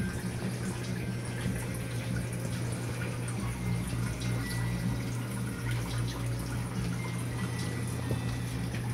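Reef aquarium water circulating, a steady rush and trickle of water over a low, even pump hum.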